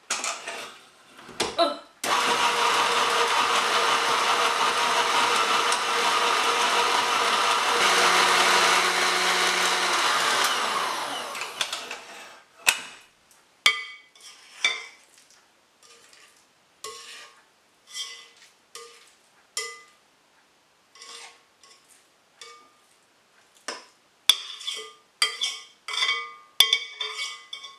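Electric stand mixer with a balloon whisk beating mascarpone and butter together in a ceramic bowl. It starts about two seconds in, runs steadily for about nine seconds, gets a little louder, then winds down. After that come scattered short knocks and scrapes against the bowl.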